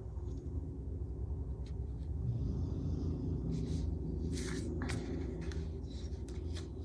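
Helicopter flying nearby: a steady low rumble, with a few brief soft rustles of handling over it.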